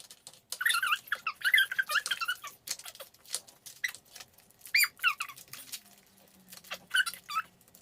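Plastic toy packaging being opened by hand: irregular crinkling and clicking, with short high squeaks scattered throughout.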